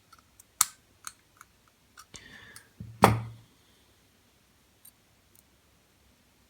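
Small metal clicks and taps from handling a half euro lock cylinder while its retaining clip is worked off the back, a few scattered clicks with the loudest about three seconds in, then only faint ticks.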